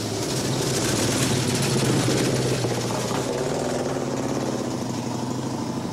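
A motor vehicle's engine running steadily, swelling to its loudest about two seconds in and then slowly easing off, as if driving past.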